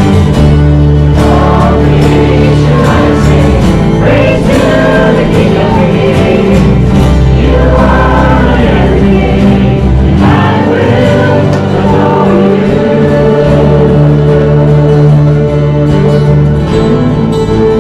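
Choir or congregation singing a gospel hymn over instrumental accompaniment, with held bass notes that change every few seconds.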